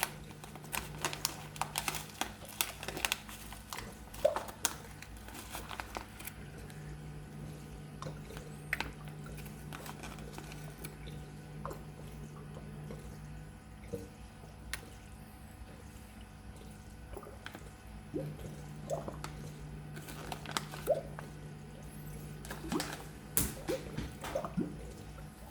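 Water in a reef aquarium: scattered drips, small splashes and clicks over a low pump hum that comes and goes.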